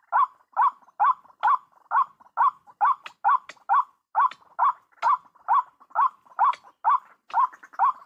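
White-breasted waterhen call: a short hoarse note, each with a slight upward lilt, repeated steadily and evenly about twice a second.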